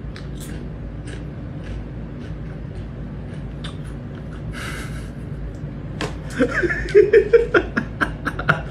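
Kitten scratching in a litter box of pellet litter: scattered light clicks and a short rustling scrape over a steady low hum. About six seconds in, louder short sounds with a shifting pitch come in.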